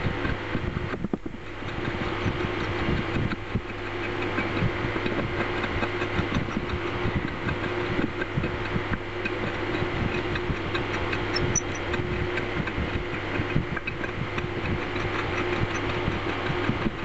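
A steady low machine hum with a dense run of small irregular scratching and ticking over it, fitting a small hand tool scraping at the grinder's cast-iron housing.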